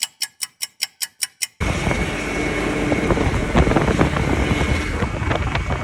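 A quick, even run of about nine sharp clicks, then a truck's engine running loud with a steady high whine over it.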